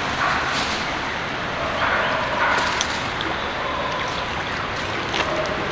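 Steady outdoor background noise, an even hiss with a few faint clicks and short faint high tones.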